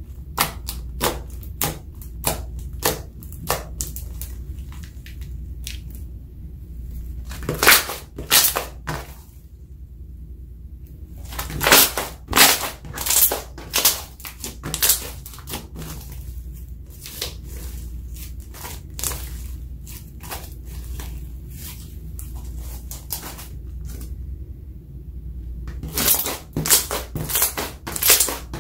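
Glossy slime being squeezed and kneaded by hand, giving runs of sharp wet clicks and pops as air pockets burst, with short pauses between the runs. A steady low hum sits underneath.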